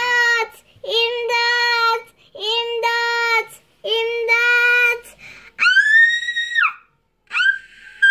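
A child's voice singing or vocalising wordless held notes: four mid-pitched notes of about a second each, then two high drawn-out cries that drop away at their ends.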